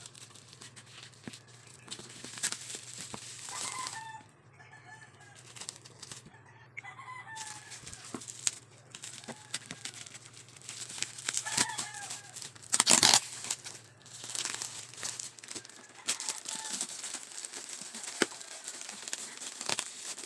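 Parcel packaging being handled and torn at in short crinkling rustles, with a louder rip about two-thirds of the way through, while chickens cluck repeatedly in the background. A steady low hum runs underneath and fades out later on.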